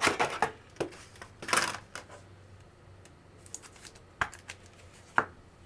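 Light handling noise: irregular small clicks and a few short rustles, with a sharper click about four seconds in and another a second later.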